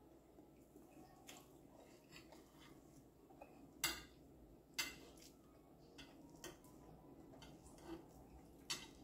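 Stainless steel knife and fork clinking against a ceramic plate while cutting soft pancake and banana: a few faint, sharp clicks, the loudest about four seconds in.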